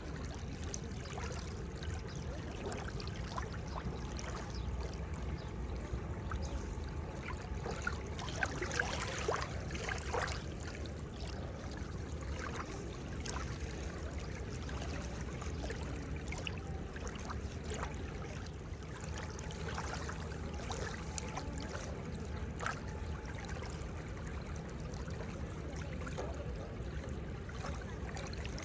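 Seawater washing at the shoreline: a steady rush of water with many small splashes and trickles, swelling louder for a couple of seconds about eight seconds in.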